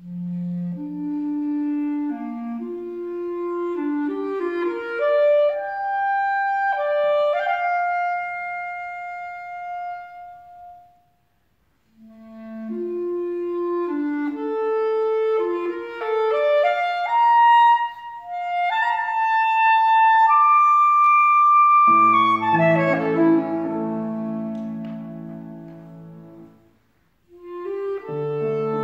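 Clarinet playing a slow melody in two phrases, each climbing step by step from the low register, with a brief pause between them. About two-thirds of the way through, a held accompanying chord of low notes comes in and fades, and the clarinet resumes near the end.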